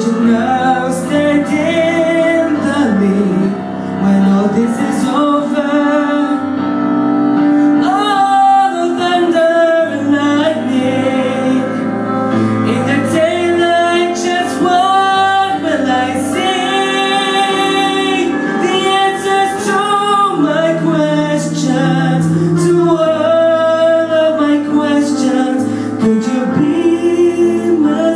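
A vocalist singing a slow Christian worship ballad over instrumental backing, with long held notes that waver in vibrato.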